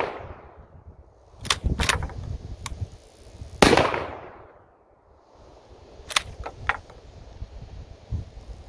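Rock Island Armory All Generations 12-gauge pump-action shotgun firing rifled slugs. A shot's echo dies away at the start, the pump is racked with two sharp clacks about a second and a half in, and the next slug fires with a loud, echoing report a little over three and a half seconds in. The action is worked again with a few lighter clacks around six seconds in.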